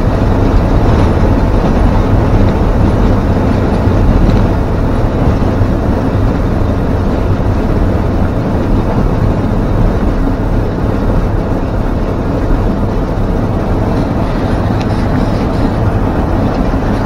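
Steady engine and road noise heard from inside the cab of a 1952 Ford F1 pickup cruising on the highway while towing a loaded trailer, with a deep, even rumble throughout.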